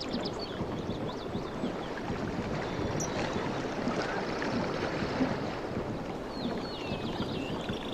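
Water rushing steadily, with small birds chirping over it near the start, briefly in the middle, and again toward the end.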